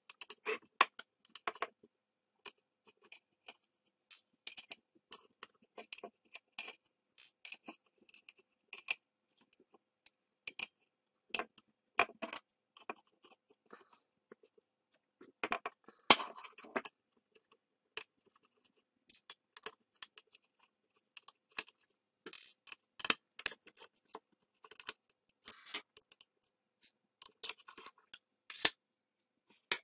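Small metal clicks, taps and scrapes of a hard drive's platter clamp, machined aluminium spacer rings and platters being worked loose and lifted off the spindle by hand and with a small screwdriver. The clicks come irregularly, with a busier flurry about halfway through.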